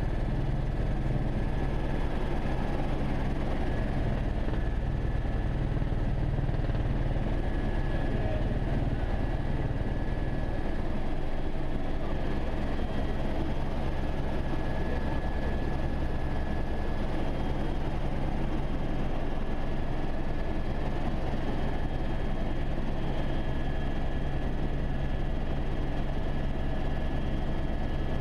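Eurocopter AS350 Écureuil helicopter in flight, heard from inside the cabin: a steady, low drone of the rotor and turbine with a faint steady high whine over it.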